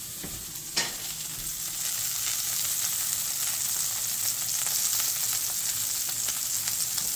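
Salmon fillet searing in olive oil and butter in a cast iron skillet: a steady crackling sizzle that gets a little louder about two seconds in. A single sharp click comes just under a second in.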